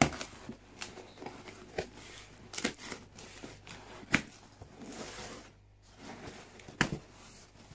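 Cardboard box opened by hand: packing tape torn off and flaps pulled back, with cardboard rustling and scraping and several sharp taps and clicks.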